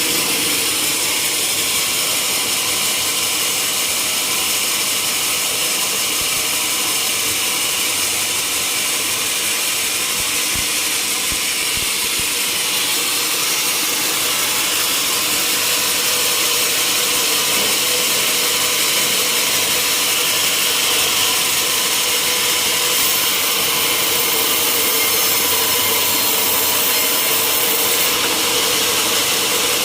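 Sawmill saw cutting through a log, a loud steady hiss-like running sound with a faint constant hum, no breaks.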